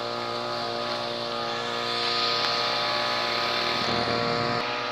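An engine running at a steady speed, a constant drone. A hiss swells over it in the middle.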